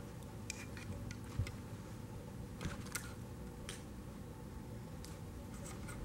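Scattered faint clicks and light handling noise of hands and small hand tools working on automotive wiring-harness wire, as a wire is redone for a splice.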